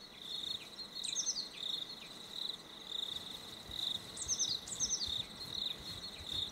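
Night insect chorus of crickets: a steady high trill that swells and fades about twice a second, with a few short, higher chirps falling in pitch about a second in and twice more past four seconds.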